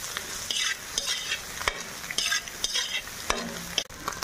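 Slotted steel spatula stirring and scraping shredded vegetables around an iron kadai, about two strokes a second, over a light sizzle of frying, with a couple of sharp taps of metal on the pan.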